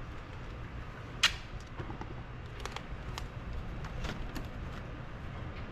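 Gorilla Tape being handled and torn: one short sharp snap of tape about a second in, then a few faint ticks and rustles over a low steady hum.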